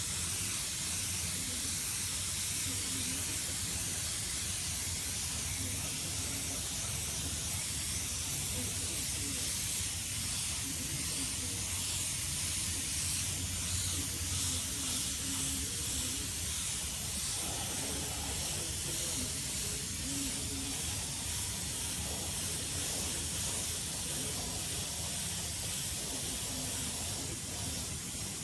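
Paint spray gun hissing steadily as it sprays chrome paint onto a motorcycle body part.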